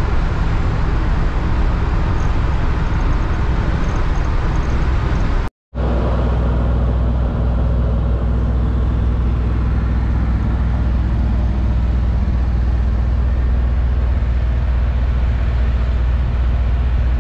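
Pickup truck's engine and road noise heard from inside the cab while driving, a steady low drone. It drops out completely for a split second about five and a half seconds in, then carries on the same.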